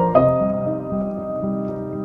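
Soft background piano music, with a chord struck just after the start and held.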